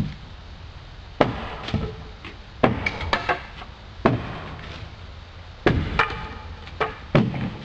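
Long-handled demolition tool striking a wooden deck railing: about a dozen sharp, irregular blows, some with a brief ring as the balusters are knocked loose.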